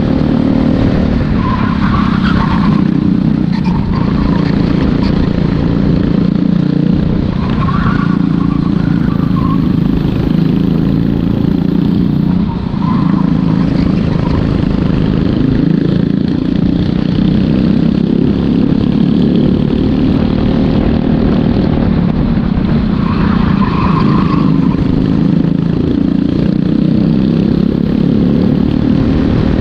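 Racing kart's small engine running hard under the driver's seat, its note rising and falling with the throttle through the corners, with a brief dip about twelve seconds in.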